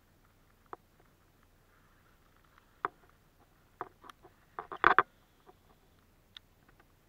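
Scattered sharp clicks and knocks of a baitcasting rod and reel being handled while a lure is worked, with a quick run of louder knocks about five seconds in.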